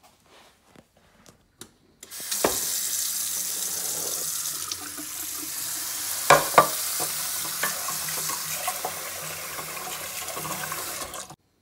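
Kitchen tap running into a stainless steel pot of diced carrots and celery, filling it with water. The water starts about two seconds in and stops suddenly near the end. Several sharp knocks come as the wooden spoon stirs in the pot, the loudest two about halfway through.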